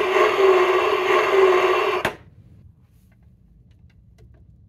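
Electronic sound effect from a toy monster truck's small speaker: a steady, slightly wavering buzzing tone that cuts off suddenly about two seconds in. After it come a few faint clicks as the toy trucks are handled.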